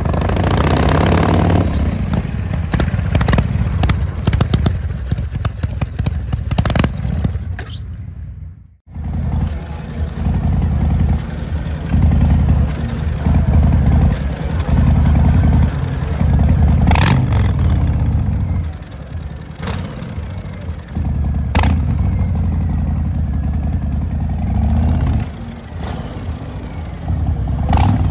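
Harley-Davidson V-twin motorcycle exhaust, a deep low rumble rising and falling with the throttle. The sound cuts out abruptly for a moment about nine seconds in, then resumes.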